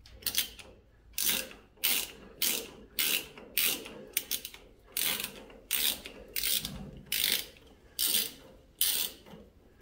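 Socket ratchet clicking in short, repeated strokes, about a dozen bursts evenly spaced, as it spins a lock nut off the steering sector cover's adjuster bolt of a Ford 8N tractor.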